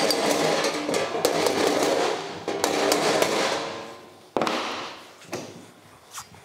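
Body hammer tapping a sheet-metal motorcycle fender against a dolly held underneath, hammer-and-dolly dent work knocking the dent out. It starts as a quick run of light metallic taps with the panel ringing, eases off about three seconds in, then gives a few single taps about a second apart.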